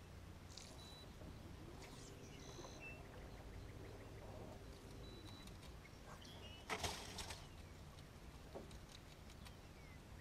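Faint outdoor ambience of a marsh canal with a steady low hum and scattered short bird chirps, mostly in the first few seconds. A brief, louder rush of noise comes about seven seconds in.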